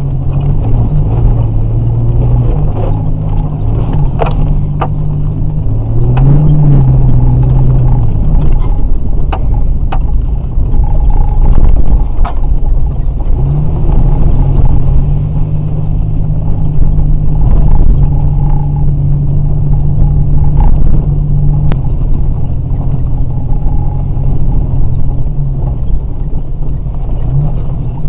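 Vehicle engine and tyres on a rutted dirt trail, heard from inside the cab: a low steady drone that rises and falls as the engine speed changes, over road rumble. Now and then comes a short knock or rattle as the vehicle goes over bumps.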